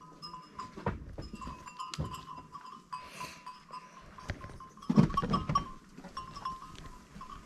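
Sheep bleating, with scattered sharp clicks and knocks and a louder, low sound about five seconds in.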